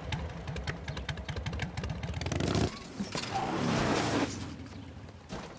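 Motorcycle engines running with a fast, throbbing beat that cuts off sharply about two and a half seconds in, then a rushing noise that swells and fades.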